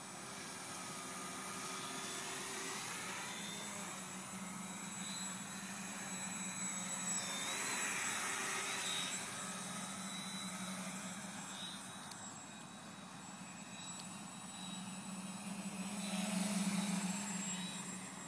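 Homemade tricopter's motors and propellers whirring as it flies, with a steady hum that swells twice as it comes closer, about halfway through and again near the end.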